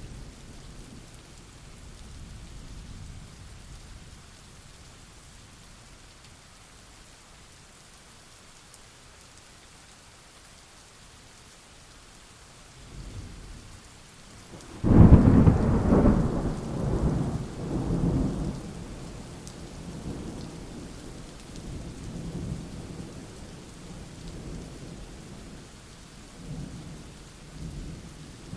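Thunderstorm: steady rain with rolling thunder. A sudden loud thunderclap comes about halfway through and rumbles on in several swells, and another rumble begins near the end.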